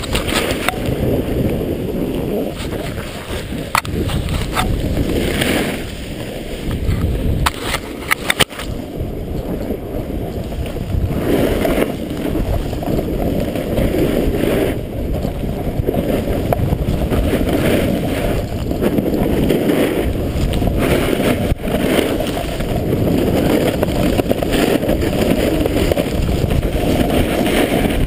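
Wind rushing over a body-mounted camera's microphone while a snowboard scrapes and carves over packed snow, with a few sharp knocks between about four and nine seconds in.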